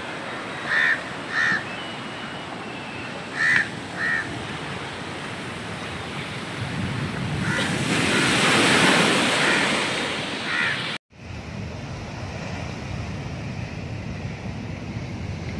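Rough sea surf breaking over a rock seawall during a sea incursion, a steady roar with wind buffeting the microphone, swelling louder as a big wave comes in about halfway through. A crow caws in short pairs several times in the first half.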